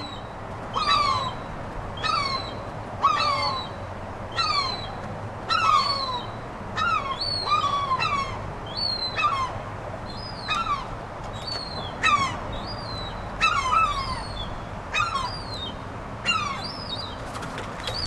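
Gull calling over and over, about one call every second, each a short cry that drops in pitch.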